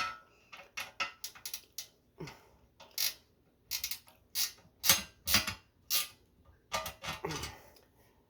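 Hand ratchet driving a screw by hand, clicking in short, irregular runs of strokes.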